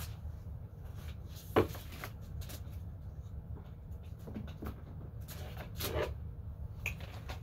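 Plastic CD jewel cases being handled and picked up: soft rustling and light clacks, with one sharp click about a second and a half in, over a steady low hum.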